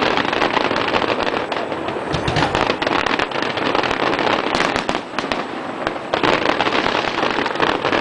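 A fireworks barrage: dense, continuous crackling and popping with many sharp bangs, thinning briefly about five seconds in before building again.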